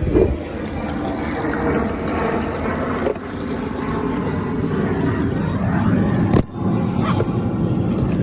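Water running from a tank into a bucket of degreaser mix, a steady rushing splash as the bucket fills, with a knock at the start and a brief break about six seconds in.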